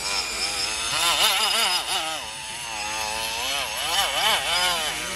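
Electric motor and geared drivetrain of an RC scale crawler truck whining, its pitch rising and falling over and over as the throttle is worked while it is bogged in deep mud.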